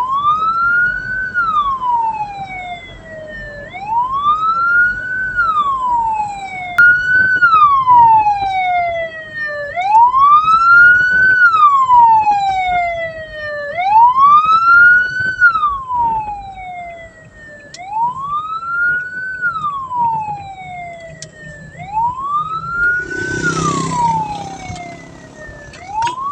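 Hearse's siren wailing, its pitch rising quickly and falling slowly over and over, about every four seconds. A brief rush of noise cuts in about 23 seconds in.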